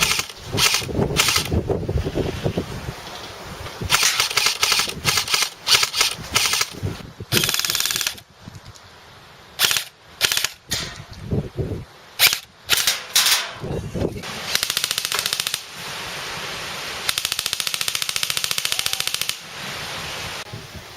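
Airsoft guns firing: scattered single shots and short bursts, then two longer full-auto bursts in the second half, the last about two seconds long.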